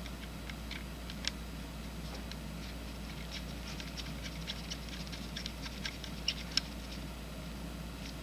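Light, irregular clicking and scraping of a condensing lens being screwed finger tight into the metal mount of a Zeiss SL120 slit lamp by gloved fingers, over a steady low hum. Two sharper clicks come a little after six seconds in.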